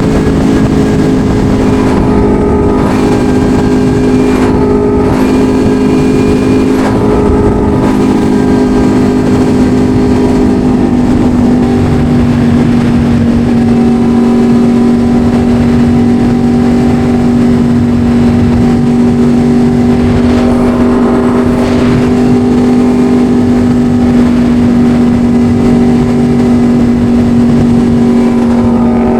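Yamaha R1 sport bike's inline-four engine running under way at a steady cruising note, with a few short dips in the sound during the first several seconds.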